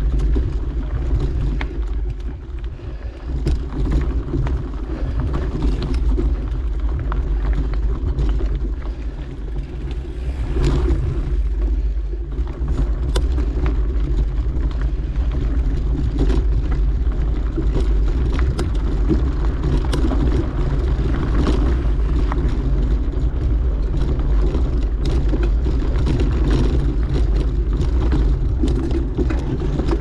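Mountain bike ridden along a dirt trail: wind buffeting the microphone and a steady tyre rumble, with frequent sharp clicks and rattles from the bike over the ground.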